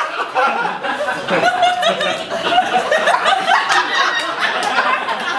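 Live audience laughing and chuckling, mixed with wordless vocal noises and sharp smacking clicks from performers miming frantic eating.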